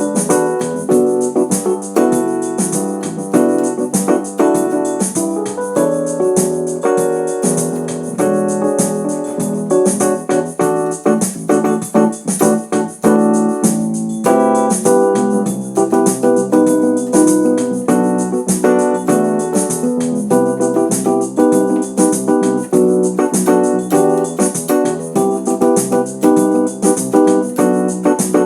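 Electric keyboard playing a song in an electric piano and organ voice: a continuous run of chords and melody notes.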